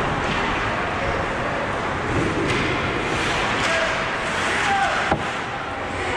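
Ice hockey game sound: a steady wash of skates scraping the ice and arena noise, with players' and spectators' voices, and one sharp crack about five seconds in.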